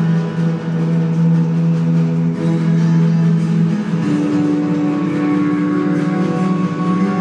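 Didgeridoo drone played together with an acoustic guitar. About four seconds in, the strong low drone gives way to a higher held tone.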